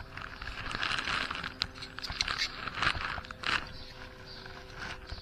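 Scratchy scraping and small irregular clicks from working at residue on the PS3 Slim APS-270 power supply's circuit board, where a crusty deposit that looked like corrosion is being checked and turns out to be flux. A faint steady hum sits underneath.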